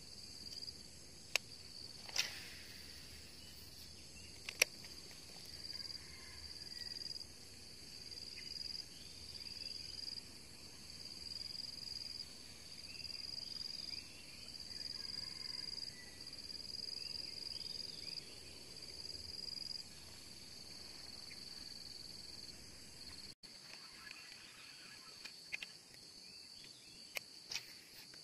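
Insects trilling in a steady high-pitched chorus that swells in regular phrases about every second and a half, with a few sharp clicks.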